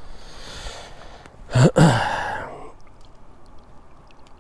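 A man sighing once, about a second and a half in.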